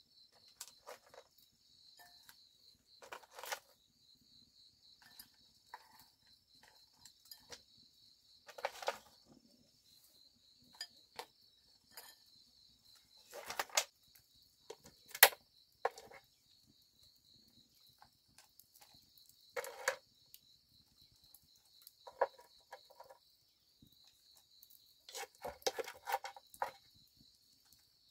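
Insects chirring steadily in a high, finely pulsing drone. Scattered short knocks and clatters come every second or two, the sharpest about fifteen seconds in.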